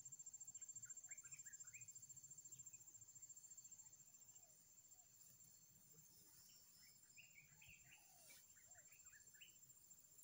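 Faint outdoor ambience: a steady high-pitched insect trill throughout, with clusters of short bird chirps about a second in and again from about seven to nine seconds in.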